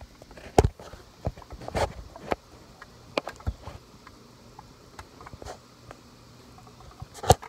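Handling noise from a phone being worked into a cardboard box: irregular light knocks, taps and rubbing against the cardboard, with a louder knock near the end.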